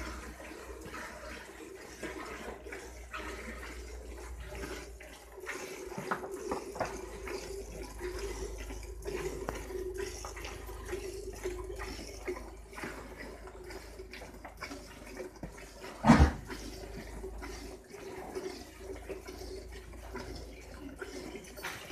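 Milk squirting in quick streams into a steel pail as a water buffalo is milked by hand. About sixteen seconds in there is a single sharp knock, the loudest sound.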